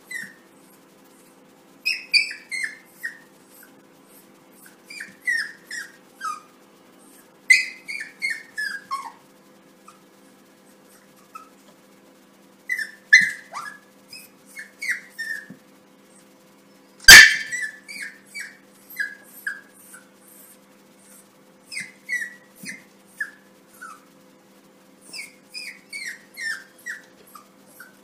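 Yorkshire terrier puppy yipping and whining at its own reflection in a mirror: bursts of several short, high-pitched, falling cries every few seconds, with one loud, sharp yap about halfway through.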